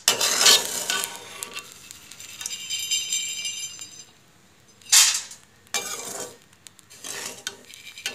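A perforated steel slotted spoon scraping and scooping through hot salt in a metal kadhai, lifting out roasted black chana, with gritty rasps and metal clinks in a few separate strokes. The salt sifts back through the holes of the spoon.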